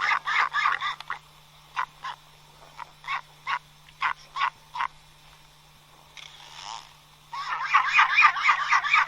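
Albatross calling: a fast, rhythmic run of repeated croaking notes, then single notes a few tenths of a second apart, then another fast run starting about seven seconds in.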